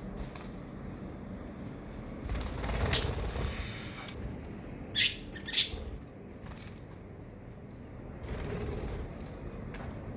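Pet birds flapping their wings in short flurries: one about three seconds in and two sharp, loud ones in quick succession around five seconds in.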